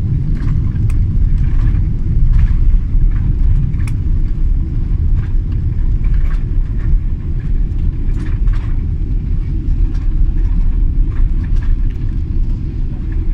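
Airliner cabin noise during the landing rollout on the runway: a loud, steady low rumble, with faint scattered clicks above it.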